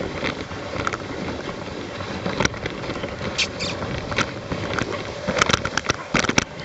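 Dog sled running over packed snow: a steady scraping hiss, with scattered sharp clicks and knocks from the moving sled that come thicker near the end.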